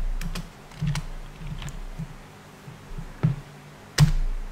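Computer keyboard keys struck one at a time as a name is typed: a handful of separate clicks, the loudest about four seconds in.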